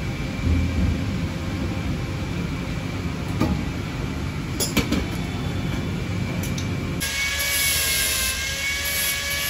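Low rumble with a few sharp metallic clicks. Then, about seven seconds in, an angle grinder starts suddenly with a high steady whine, worked against a car's exhaust pipe during an exhaust swap.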